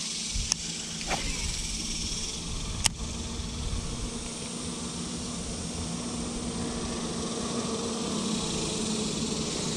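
Steady outdoor background of a low traffic-like hum with an insect buzz over it, and a few sharp clicks, the loudest about three seconds in.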